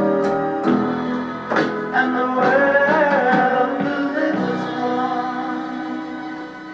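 Music with singing, a voice held over plucked and struck instruments, fading out near the end.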